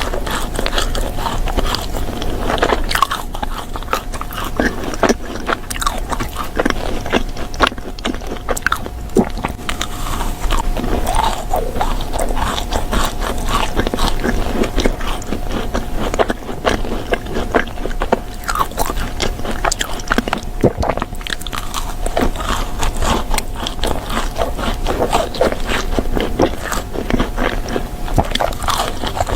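Close-miked eating sounds: a person biting and chewing crunchy food, with many sharp, irregular crunches and wet mouth sounds.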